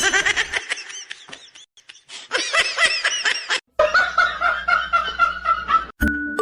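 People laughing in rapid giggling bursts, cut short twice, with bright mallet-percussion music starting near the end.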